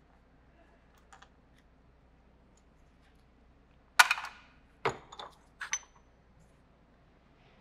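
Metal tools and shock-absorber parts clinking on a workbench: one sharp clank about four seconds in, then three lighter clinks, the last with a brief ring.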